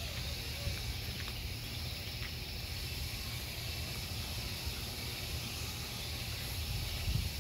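Outdoor background noise: a steady low rumble, typical of wind on the microphone, under a faint hiss, with no distinct event.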